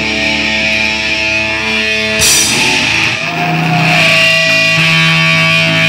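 Live punk rock band with distorted electric guitar holding sustained chords. A new chord is struck about two seconds in and left to ring.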